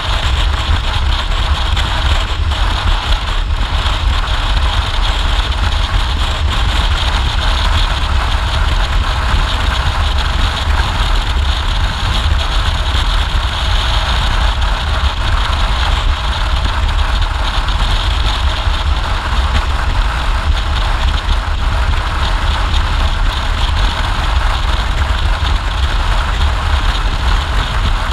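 Motorcycle riding at a steady road speed: engine and tyre noise under a steady rush of wind on the microphone.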